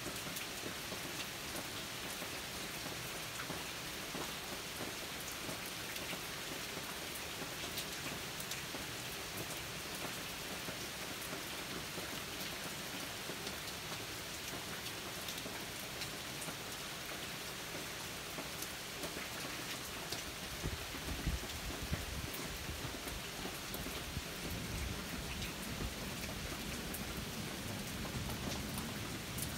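Steady rain falling, with scattered drops ticking close by. About two-thirds of the way through, a low rumble of thunder comes in and carries on.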